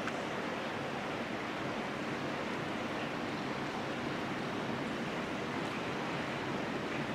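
Steady, even roar of an approaching train running through a long railway tunnel, heard from the underground platform, with air rushing through the tunnel.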